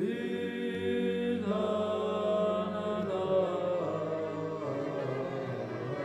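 Church choir chanting in long held chords over a steady low drone, the harmony shifting a couple of times.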